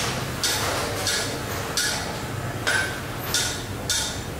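Hammer blows on metal: about five sharp strikes at uneven intervals, each leaving a short metallic ring.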